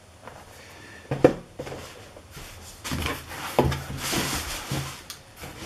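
Handling a cardboard shipping box: a knock about a second in, then rustling and scraping of cardboard and packing material as a hand rummages inside.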